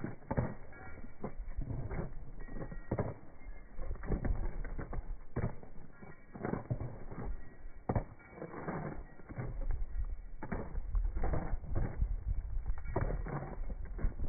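Horse hooves clopping on a paved road at a brisk gait, sharp uneven knocks, with saddle leather creaking.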